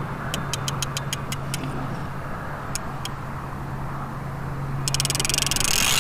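Fishing reel's clicker ticking about five times a second as a fish pulls line off the baited rod, then a couple of single ticks, and from about five seconds in a fast, dense ratcheting as the reel is worked to set on the fish. A steady low hum runs underneath.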